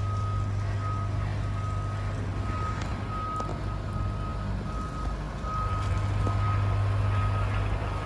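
BYD electric garbage truck's reversing alarm beeping at a steady, even rate as the truck backs up, over a steady low hum from the truck that grows louder about five seconds in.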